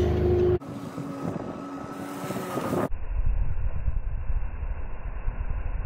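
Sea-Doo jet boat's engine running at speed over rushing water. A steady engine tone breaks off abruptly about half a second in, giving way to a quieter hissing stretch, and from about three seconds in the sound turns to a muffled low rumble.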